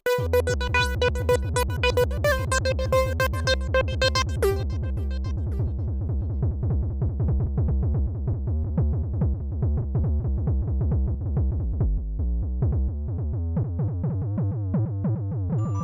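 Electronic synthesizer ringtone jingle: a bright lead melody over a steady low bass. The lead drops out about four and a half seconds in, leaving fast repeating synth notes over the bass.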